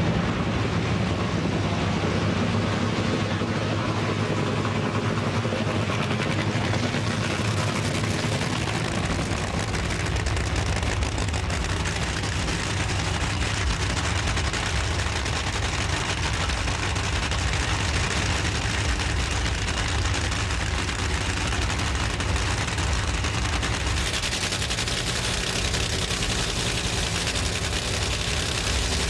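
Nitromethane-burning Funny Car drag racing engines, supercharged V8s, running with a dense, rapid crackle of firing.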